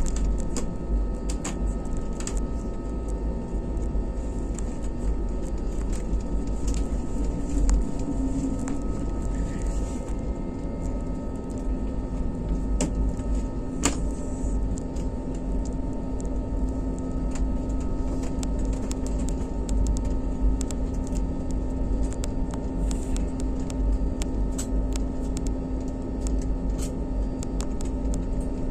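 Inside an Airbus A320neo cabin while taxiing: a steady low rumble and an even engine hum at idle, with scattered light clicks and rattles and one sharper click about halfway through.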